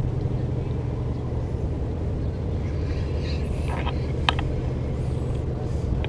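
Low steady rumble throughout, with a few light clicks from a Daiwa Regal LT1000D spinning reel about four seconds in as a hooked fish is reeled in.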